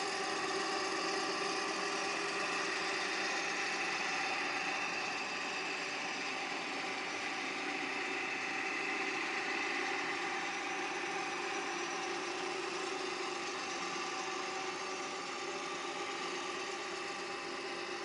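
DONAU Rapid radial drilling machine running under power: a steady mechanical whir from its motor and gearbox, with several fixed whining tones.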